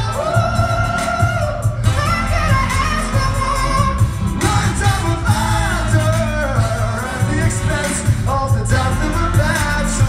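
Live pop-rock band playing with a male lead singer holding long sung notes over a heavy drum and bass beat, heard from the crowd in a large hall.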